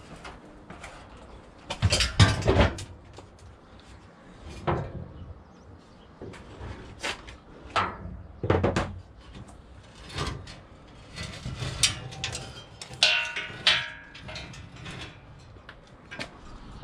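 Irregular knocks, clicks and clatter of hand tools and parts being handled and worked on a car, the loudest about two seconds in, with a short scraping, squeaky stretch about three-quarters of the way through.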